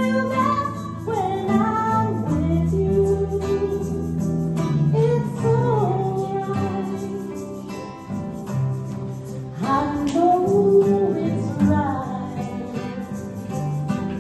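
A singer singing a slow song with long, gliding held notes over instrumental accompaniment with a steady bass line.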